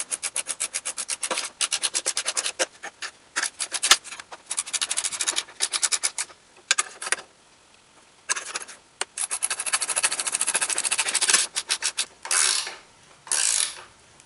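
Ratcheting box-end wrench clicking in quick runs of about nine clicks a second as nuts are tightened down on bolts through wooden spokes, with short pauses between strokes. Two short rasps near the end.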